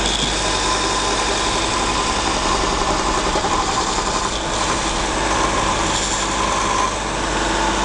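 Robert Sorby ProEdge belt sharpener running steadily, its motor humming and the abrasive belt hissing as a half-inch bowl gouge held in the jig is swept across it, grinding the edge.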